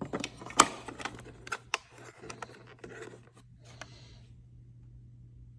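Plastic clicks and knocks of the removable battery pack being pushed back into a JBL EON One Compact speaker: a quick flurry of sharp clicks over the first few seconds, then only a faint low steady hum.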